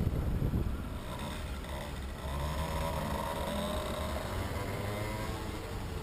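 Wind buffeting the microphone of a helmet-mounted camera while cycling, a rough low rumble, joined about two seconds in by a steady engine-like hum that fades near the end.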